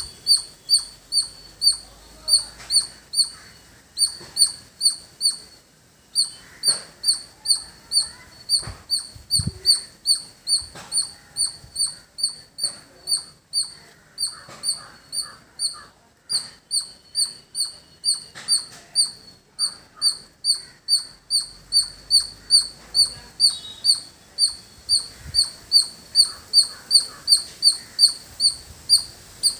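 A squirrel's alarm call: short, sharp high chirps repeated steadily at about two to three a second, with brief pauses about six and sixteen seconds in.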